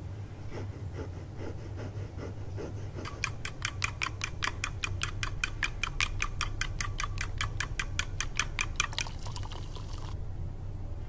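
Wire whisk beating eggs in a glass bowl: a fast, even clinking of the wire against the glass, about five or six strokes a second, starting about three seconds in and stopping shortly before the end. A low steady hum sits underneath.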